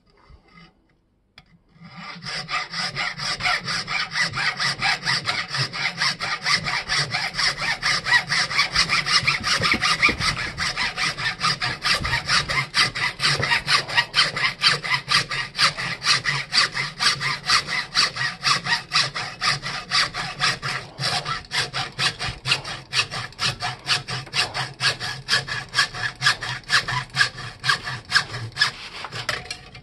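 Hand hacksaw cutting through the metal shaft of an antique hammer axe in rapid, even back-and-forth strokes, starting about two seconds in.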